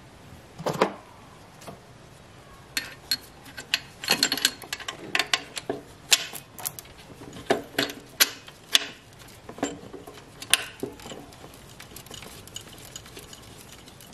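Irregular metallic clicks and clinks of hand work at a car alternator's mounting as its 14 mm bolt is fitted and turned in, with a sharp knock a little under a second in and a busier run of clicks in the middle.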